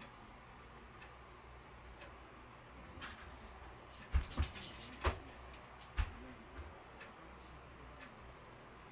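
Faint steady ticking, with a few sharp knocks and clicks about four to six seconds in.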